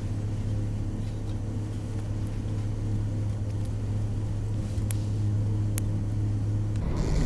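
A steady low machine hum with a couple of faint clicks, cutting off suddenly near the end.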